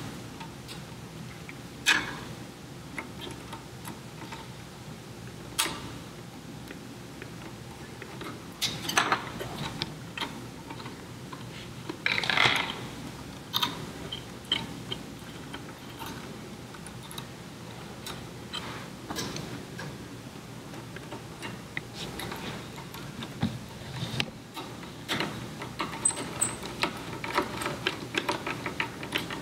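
Irregular small clicks, taps and rattles from wires with crimped spade connectors being fitted onto a power supply's screw terminals and a screwdriver working the terminal screws, with a few louder clicks.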